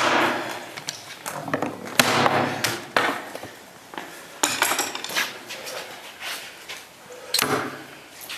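Heavy competition cutting knife chopping through targets: four sharp strikes a couple of seconds apart, some followed by a short rush of noise.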